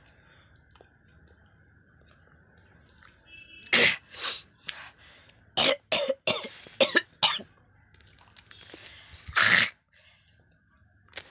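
A person coughing and clearing their throat: a couple of coughs about four seconds in, a quick run of short coughs a second later, then one longer, harsh throat-clearing near the end.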